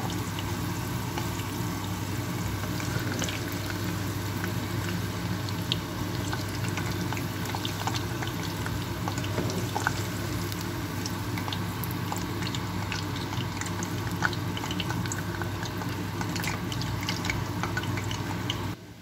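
Potato fries deep-frying in a pot of hot oil: a steady bubbling sizzle with scattered crackling pops, over a steady low hum. It cuts off suddenly just before the end.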